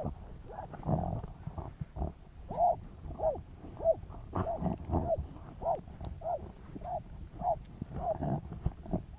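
Jagdterrier barking steadily in a fox burrow, short barks about one and a half a second, each falling in pitch, as it works a fox underground.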